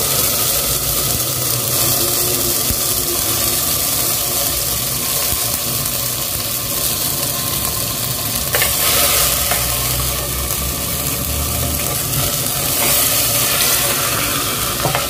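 Raw chicken pieces sizzling in hot oil in a clay handi, stirred with a wooden spatula, with a couple of brief louder moments about halfway through and near the end.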